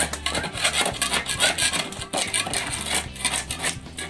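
Metal putty knife scraping old flaking paint off a painted surface, in repeated quick, rough strokes.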